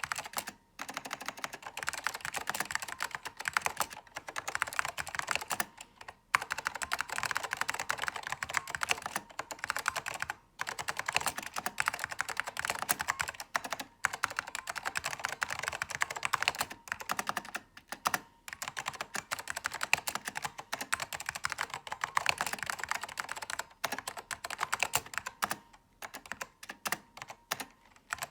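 Apple Standard Keyboard M0116 J with orange Alps switches being typed on quickly, in steady runs of keystrokes broken by short pauses every few seconds. The keys sound fairly high and light, with a metallic ping on key release that makes the typing noisy.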